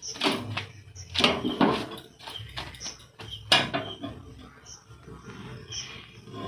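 Metal kitchen utensils clattering on a gas stove as a roti is moved from an iron tawa onto the open flame with tongs: a few sharp knocks, the loudest about three and a half seconds in.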